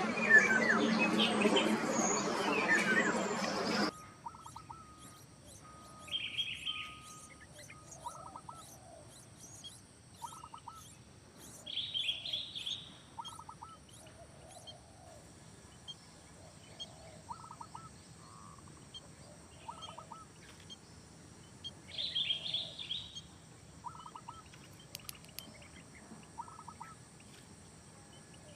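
Small birds chirping: a loud, dense run of chirps for about the first four seconds that cuts off suddenly, then short chirp phrases every few seconds with brief pulsed notes between them over a faint hiss.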